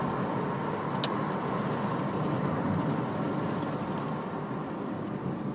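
Steady engine and road noise inside the cabin of a high-mileage Honda Civic hatchback while it is driven. There is a single small click about a second in.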